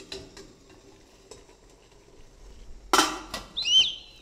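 Stainless-steel idli plate stand clinking against the steamer pot as it is lowered in. About three seconds in, the steamer's steel lid goes on with a loud clang and a short ringing squeal as it scrapes into place on the rim.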